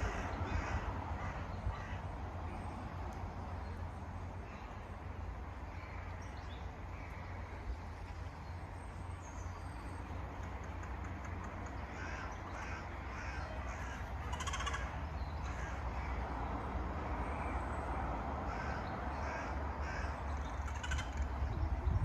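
Crows cawing repeatedly, in short calls scattered throughout, over a steady low rumble.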